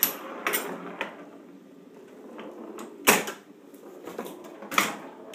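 1958 electromechanical pinball machine in play: the ball is put into play and rolls across the playfield, with a run of sharp mechanical knocks and clicks as it strikes the playfield parts. The loudest knocks come about three seconds in and again near the end.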